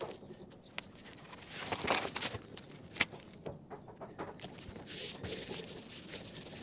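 Hands rubbing and pressing adhesive tape flat onto plastic house wrap: quiet, uneven rustling and scuffing with a few light ticks, one sharper tick about three seconds in.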